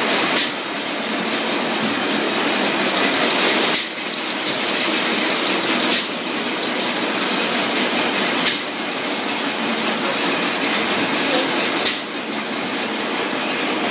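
Crossley Brothers stationary gas engine running with its flywheels turning: a steady mechanical running noise broken by a sharp crack every two to three seconds, five in all.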